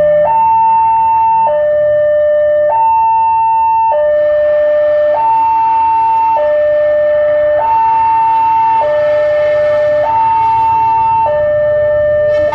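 Railway level-crossing warning alarm sounding an electronic two-tone, switching between a low and a high note about every second and a quarter, signalling an approaching train. Under it the low rumble of the approaching diesel locomotive grows toward the end.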